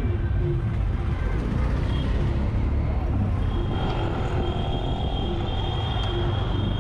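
Auto rickshaw's small engine running under way, with a steady low rumble and road noise coming into the open-sided cabin. A thin, steady high tone joins about halfway through and holds.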